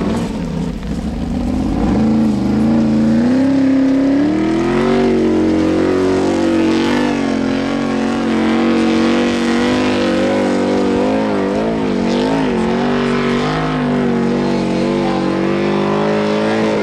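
Formula Offroad car's engine at full throttle climbing a steep sand hill: the revs rise about two seconds in and then stay high, the pitch wavering up and down a few times partway through.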